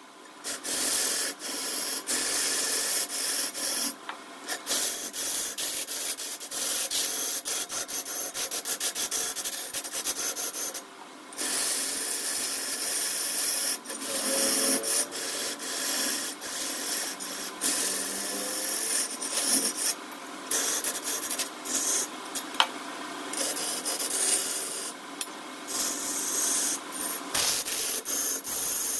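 A tool scraping against wood spinning on a wood lathe: a steady rasping hiss with a few short breaks.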